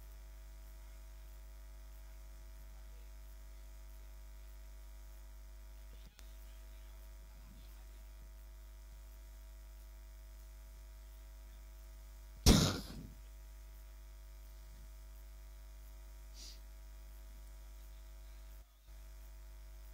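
Steady electrical mains hum on an idle commentary audio line, with one sudden, loud, short noise about twelve seconds in.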